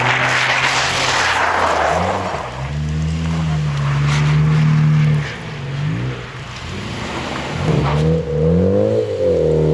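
Car engine revving: held high for a couple of seconds, dropping away about halfway through, then rising and falling in quick revs near the end. A rush of tyre noise fills the first two seconds.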